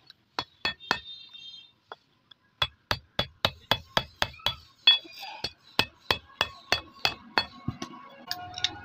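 Hammer striking a wooden-handled steel punch set on bicycle chain links on a steel plate, with a ringing metallic clank. Three blows, a short pause, then a long run of quick blows at about three or four a second, and a few light clinks of chain near the end.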